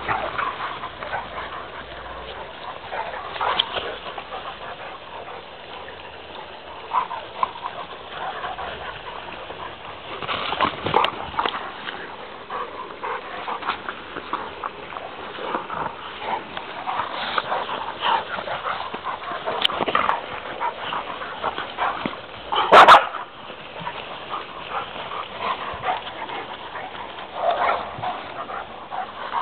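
Two Dogo Argentinos, an adult and a young puppy, play-fighting, with many short yips and whimpering dog noises again and again. One loud sharp sound comes about three-quarters of the way through.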